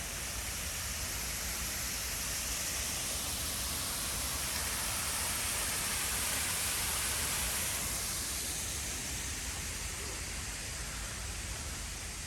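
Steady rushing hiss of falling water from an artificial waterfall, swelling a little louder around the middle and easing near the end.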